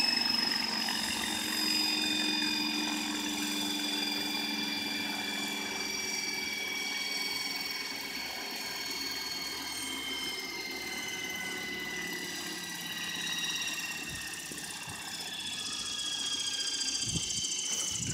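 Radio-controlled electric helicopter spinning down after landing: the motor and rotor drive make a steady whine that slowly falls in pitch as the main rotor slows.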